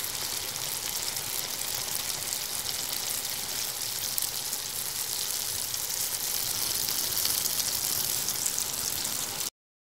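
Steady sizzle of food frying, a dense hiss that stops abruptly near the end.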